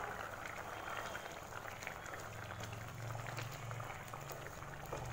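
Thick tamarind curry with okra simmering in a kadai: a steady patter of small bubbles popping and plopping. A ladle goes in to stir it near the end.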